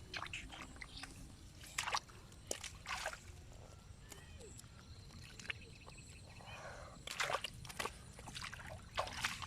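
Shallow water sloshing and splashing in irregular bursts from someone working in it by hand, with sharper splashes about two and three seconds in and a cluster between seven and nine seconds in.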